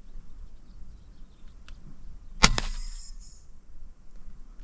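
A single shot from an FX Crown .22 pre-charged pneumatic air rifle about two and a half seconds in: a sharp crack, a fainter click a moment later, and a short hiss trailing off.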